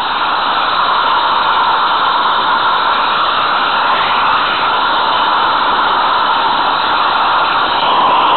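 Steady whirring hiss of a 16 mm scale garden railway train running along its track, heard from a small camera riding on the train, with no rail-joint clicks.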